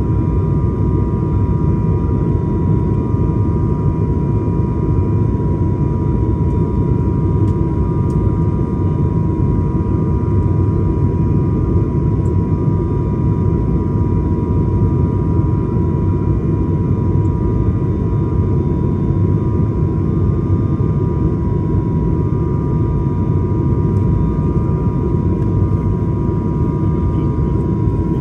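Steady cabin noise of a high-wing turboprop airliner on approach: a low, even rumble with a constant high whine from the engines and propellers over it.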